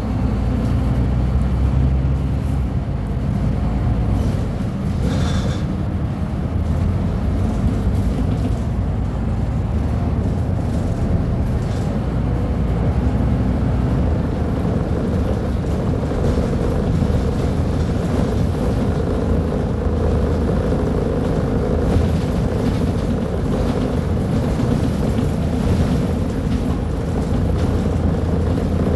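Scania K310UB bus's diesel engine running with a steady low rumble, its note shifting a little as the bus drives.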